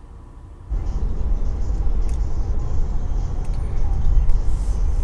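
Road and engine rumble inside a car driving at road speed, played back from a 70mai A510 dashcam recording. It starts abruptly less than a second in and then runs steadily.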